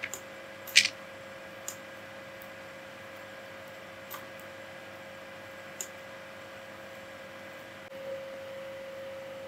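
Steady faint electrical hum with a thin steady tone, which grows a little louder near the end, and a few soft, scattered mouse clicks.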